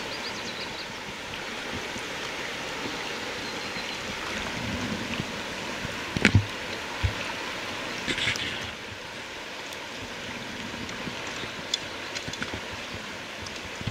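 Small rocky creek running over a riffle: a steady rush of water. A few sharp knocks come about six seconds in, and a short hiss about eight seconds in.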